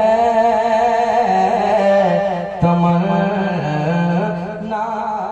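A man's voice singing a naat, a devotional poem in praise of the Prophet, into a stage microphone. He draws out long, wavering held notes, and the singing fades away near the end.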